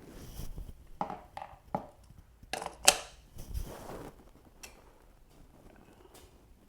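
Small hard metal parts clinking and clattering as they are handled, several sharp clicks with the loudest about three seconds in, then quieter handling noise.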